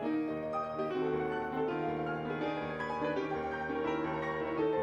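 Background music: solo piano playing a quick run of notes.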